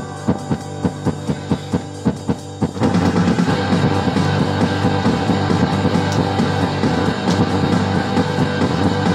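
Rock music. A steady drum beat runs over a held low note, then the full band comes in about three seconds in and the music gets louder and fuller.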